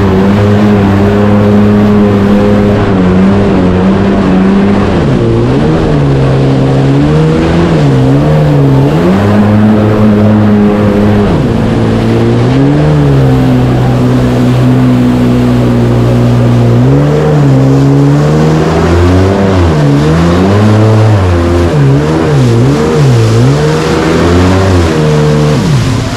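Motorboat engine running hard. Its pitch holds steady for a few seconds at a time, then dips and rises sharply as the revs change, more often toward the end.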